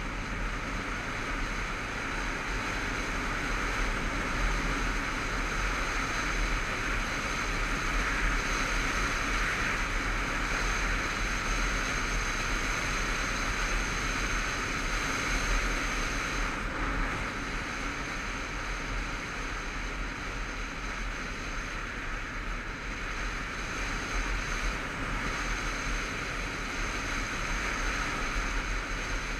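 Steady rush of wind over a motorcycle-mounted camera at cruising speed, with the bike's engine running underneath.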